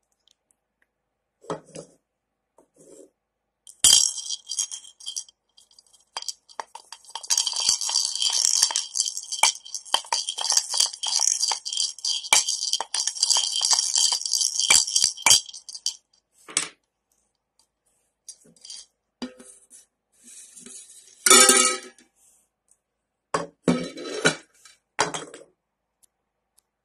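Three small balls rattling and clinking around in a plastic bowl as they are mixed, a dense rapid clatter with a ringing edge lasting about twelve seconds. A few separate sharp knocks follow later on.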